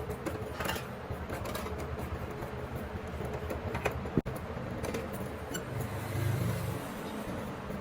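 A steady low mechanical hum, like an engine running, with a few sharp metallic clicks and clinks.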